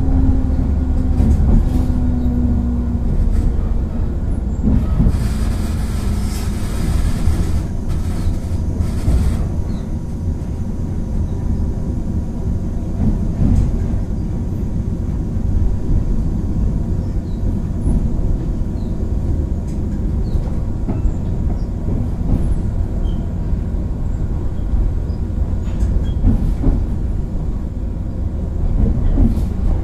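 Resistance-controlled JR West 103 series 3550 subseries electric train running, heard from aboard: a steady low rumble of the wheels on the rails. A falling tone fades out in the first few seconds, and a hiss lasting about four seconds comes about five seconds in.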